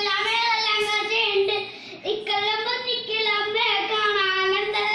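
A young boy singing a Malayalam nadan pattu (Kerala folk song) unaccompanied, in a clear, steady voice, with a short pause for breath about two seconds in.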